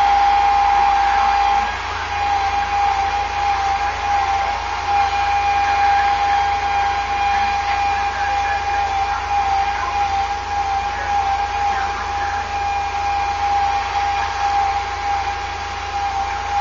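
Roofing truck's hydraulic boom and engine running, a steady high whine over a mechanical hiss as the boom moves a pallet of shingles. The sound drops a little about two seconds in, then wavers.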